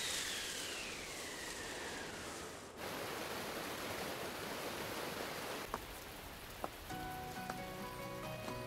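A gust of wind with a whistling tone that rises and then falls, cutting off sharply; then a steady hiss of rain. Soft music with held notes comes in near the end.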